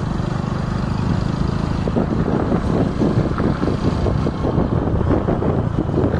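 Motorcycle engine running steadily on the move, with wind rushing over the microphone; the sound turns rougher and choppier about two seconds in.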